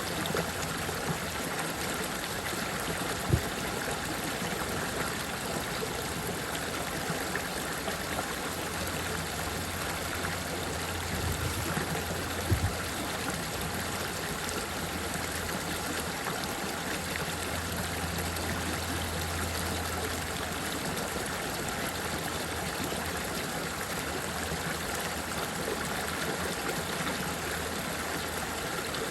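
Running water flowing steadily, an even rushing sound. A brief low knock comes about three seconds in, and a double knock near the middle.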